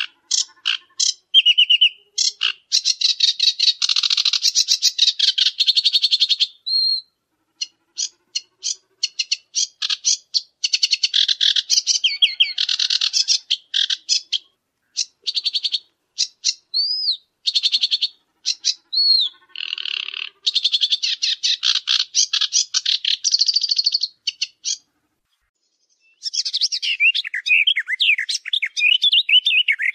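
Birds chirping in quick trains of sharp, high chirps and trills, broken by short pauses, with a warbling song of gliding notes starting near the end.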